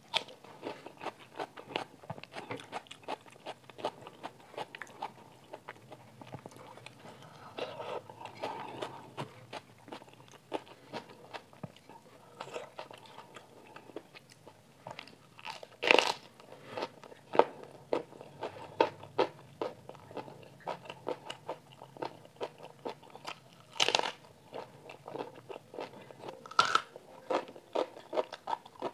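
A person chewing mouthfuls of dal, rice and steamed cabbage close to the microphone: a steady run of small wet mouth clicks, with a few sharper crunches about halfway through and again near the end.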